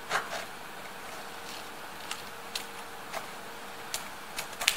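Scissors cutting a strip of continuous-form printer paper: irregular sharp snips, the loudest near the end, over a faint steady hum.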